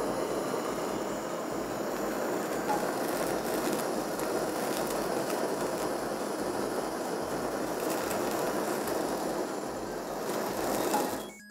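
Beef tongue sizzling in a hot pan as it is reheated to crisp it: a steady hiss that cuts off abruptly near the end.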